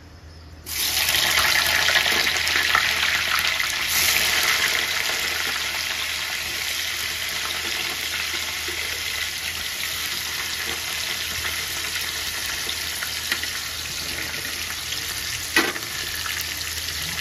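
Salted brinjal (eggplant) pieces dropped into hot oil in a kadhai: a sudden loud sizzle about a second in, settling into steady frying that eases slightly. A single knock near the end.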